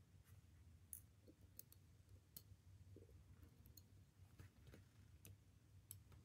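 Faint, scattered clicks of metal tweezers touching the small parts of a Seiko 6138 chronograph movement, over a steady low hum.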